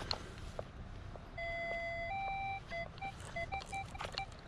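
Minelab Equinox metal detector signalling a buried target: short repeated beeps, then a held tone about a second and a half in, stepping up to a slightly higher held tone, then short beeps again, with a few soft knocks. The tone reads like a penny, but the target responds bigger than a coin.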